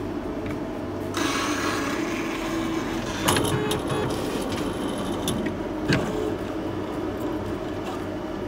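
Optical lens edging machine starting a cycle: a steady motor hum, with a hiss setting in about a second in and two sharp knocks, around three and six seconds in, as the machine closes up and works the lens.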